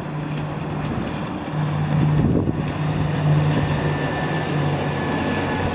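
Honda BF80 four-stroke outboard motor running steadily at planing speed, with wind noise on the microphone. It grows a little louder about two seconds in as the boat passes close.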